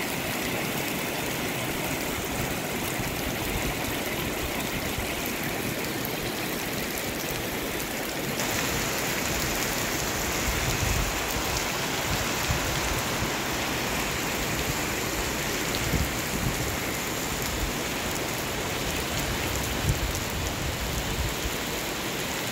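Heavy rain falling steadily on flooded pavement, a constant hiss that turns brighter about eight seconds in. A few soft, low thumps come through later on.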